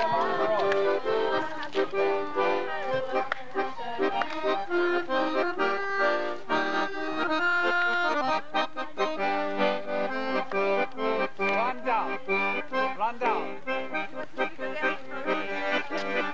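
Piano accordion played live, a traditional folk dance tune with a melody over chords that continues without a break.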